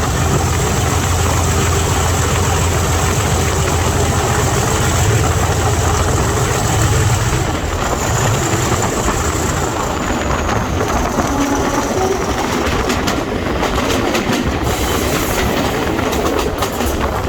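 Class 37 diesel locomotive's English Electric V12 engine passing under power: a heavy low drone with a high whistle, both fading about eight to ten seconds in. The train's wheels then click over the rail joints as the coaches go by.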